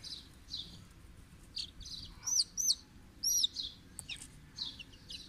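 Young chickens peeping repeatedly in short chirps, with three loud, arching peeps about halfway through.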